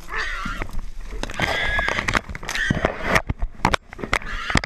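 Wild hog squealing, several high-pitched squeals in short runs, while caught by hunters and a catch dog, with brush and reeds crackling and snapping around it.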